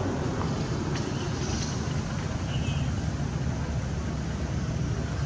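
Steady low rumbling background noise, with a couple of faint high chirps near the middle.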